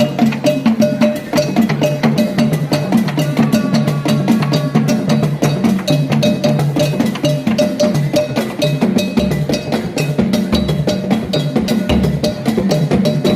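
African drums played in a fast, dense rhythm of many strokes a second, with no pause.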